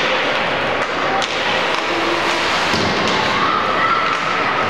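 Ice hockey game in an arena: a steady din of spectators' and players' voices with a few sharp knocks of sticks and puck.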